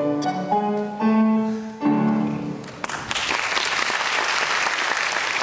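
The final phrase of a song with piano accompaniment ends about three seconds in, followed by audience applause.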